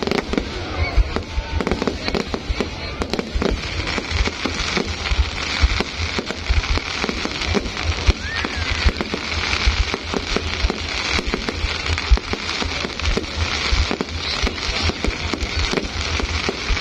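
Fireworks going off in a dense, continuous barrage of rapid bangs and crackles with no pause.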